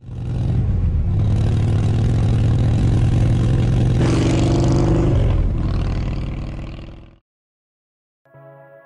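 A motorcycle engine running hard under a logo intro, with a louder, harsher surge about four seconds in. It fades and stops about seven seconds in.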